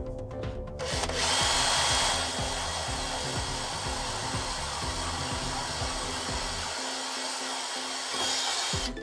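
Cordless drill starting about a second in and running steadily as its bit slowly bores down into white plastic cable trunking, until it stops just before the end; the slow progress comes from a very blunt bit. Background music plays underneath.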